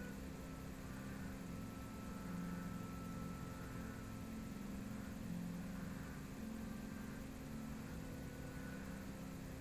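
Steady low hum with a few low tones that shift slightly in pitch, and no distinct knocks or impacts.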